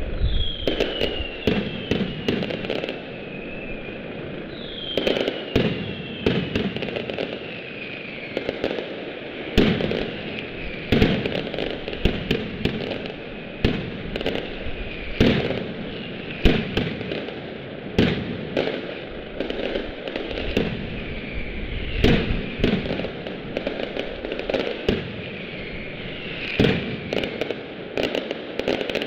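Mascletà firecrackers going off in a daytime pyrotechnic barrage: loud bangs about every second at uneven spacing, with several falling whistles from whistling fireworks near the start and again near the end.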